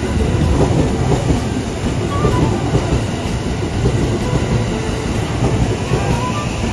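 JR West electric train running on the rails, a loud, steady rumble of wheels and running gear.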